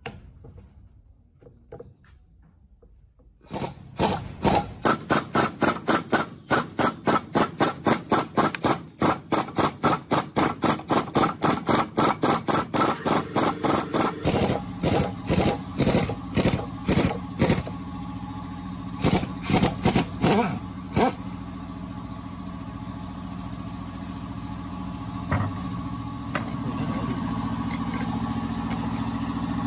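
Rapid metallic hammering on a three-jaw gear puller working a flange off the shaft of an old parallel-shaft speed reducer, about four strikes a second in a long even run. From about halfway a steady machine hum sets in under the strikes, which come in shorter bursts and stop a little later.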